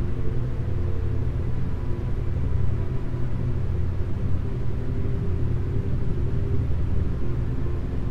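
Synthesized meditation soundtrack: low, sustained drone chords with isochronic tones pulsing rapidly in the low range, a brainwave-entrainment track ramping toward beta frequencies.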